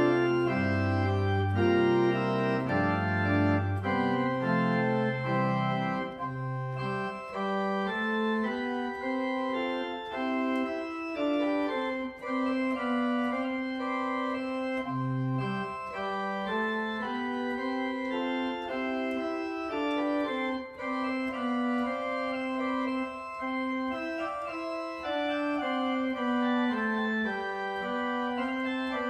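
Church organ played as the closing postlude of the service: sustained chords over deep bass notes for the first several seconds, then the bass drops out and a held lower line moves beneath the upper voices.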